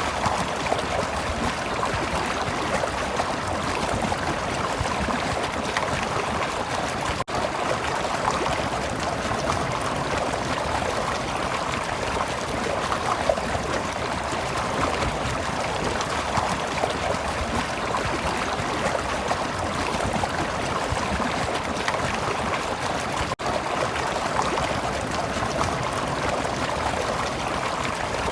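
Stream water flowing and trickling steadily, with two very brief dips in level.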